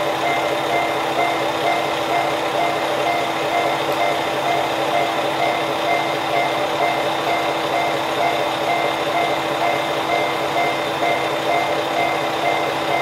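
Diesel railcar idling at the platform, its engine running steadily, with a high electronic beep repeating evenly over it.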